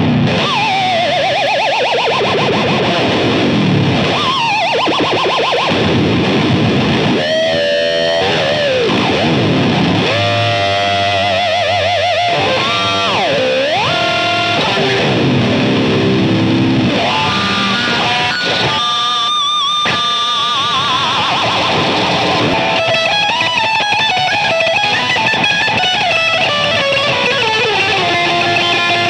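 1986 Ibanez RG430 electric guitar played through distortion, with wide swooping pitch dives and rises from its tremolo arm and wavering vibrato on held notes.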